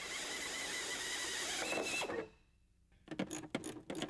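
Air drill spinning a hole saw through the sheet-metal fender panel: a steady hiss with a thin squeal that rises in pitch just before it stops, about two seconds in. After a short pause, a quick run of sharp clicks near the end.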